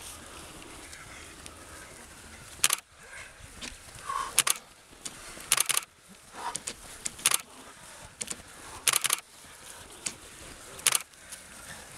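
Footsteps of trail runners passing close on a grassy track, an irregular series of short, sharp swishes and strikes as shoes hit the grass, some in quick pairs.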